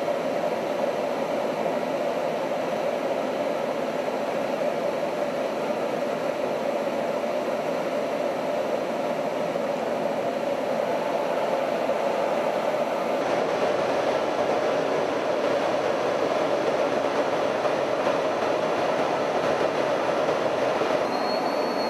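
Steady jet engine and airflow noise heard inside the cockpit of an F-16 fighter jet in flight, an even rushing hum that holds the same level throughout.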